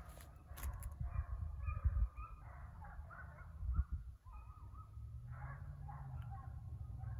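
Repeated distant animal calls, wavering and overlapping, from about a second in, over a low rumble.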